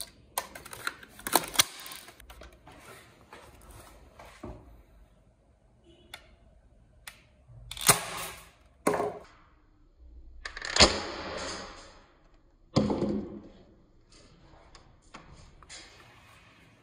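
A plastic toy sniper rifle with light plastic clicks and rattles as small plastic BB pellets are loaded by hand, then four loud snaps, each with a short rush of noise, as the gun is worked and fired at a target.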